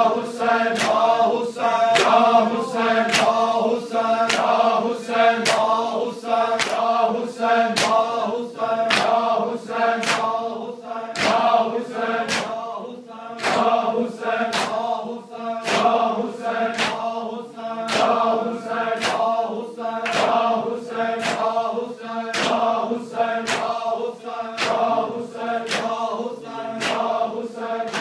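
A group of men chanting a noha, a Shia lament for Hussain, in unison while doing matam. Open-hand chest-beating slaps land in a steady rhythm of about two a second.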